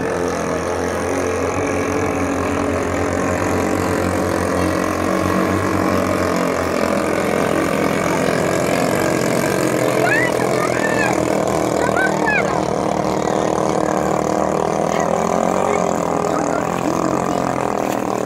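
Small 6.5 hp ketinting longtail engines on racing boats running at speed: a continuous, steady engine buzz.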